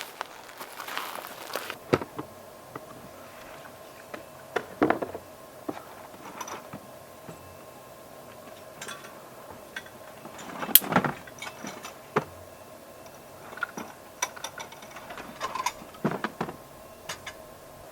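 Scattered knocks, clicks and light clatter of objects being handled, with the loudest knock about eleven seconds in, over a faint steady hum.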